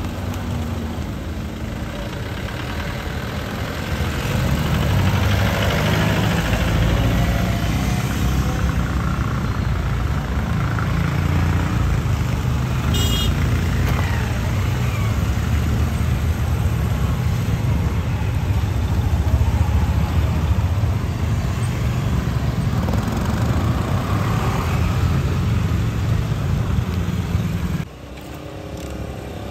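Motorcycles, scooters and a car riding slowly past, their engines running under a steady low rumble of street traffic. A brief high-pitched tone sounds about halfway through, and the rumble drops suddenly near the end.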